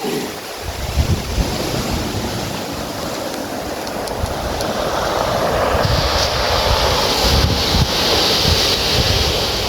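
Waves washing up and back over a stony beach, the water hissing and the stones rumbling as the surf rolls them. The surge grows louder and brighter about six seconds in, with wind buffeting the microphone underneath.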